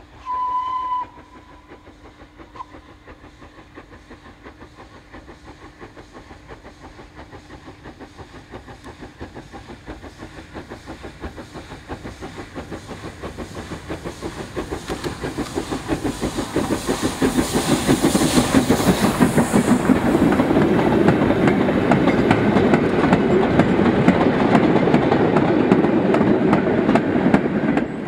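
A steam locomotive's whistle sounds one short blast, then its rhythmic exhaust beats and the train's running noise build steadily louder as it approaches, with a burst of steam hiss about two-thirds of the way through.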